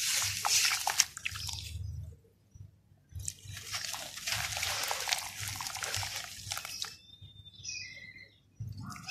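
Hands sloshing and squeezing wet red dirt in a basin of muddy water, then crushing a dry lump of red dirt so that it crumbles and trickles down into the water. A brief high chirp sounds near the end.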